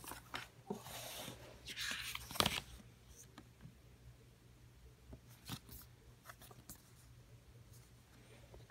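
Paper and thin card rustling as a printed instruction booklet and card insert are pulled out and handled, with a sharp click about two and a half seconds in, then scattered light taps and rustles.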